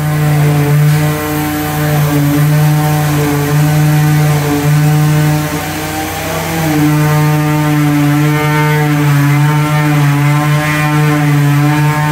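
Concrete vibrator running with a steady hum, its pitch dipping and wavering briefly about six seconds in.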